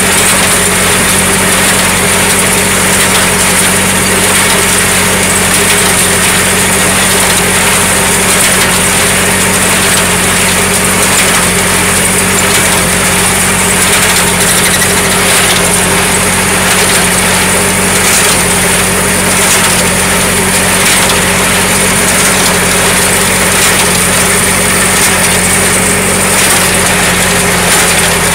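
Tractor engine running steadily under load as it drives a PTO-powered New Holland 273 small square baler, with the baler's mechanism clattering as it picks up and bales hay.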